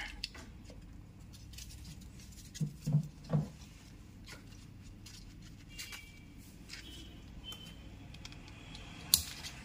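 Gloved hands fitting wire connectors onto an air-conditioner indoor control board: scattered light clicks and rustles, a few dull knocks about three seconds in, and one sharp click near the end.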